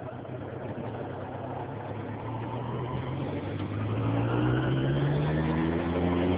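Suzuki Bandit 1200S's inline-four engine pulling as the bike speeds up, its pitch rising slowly and the sound growing louder through the second half.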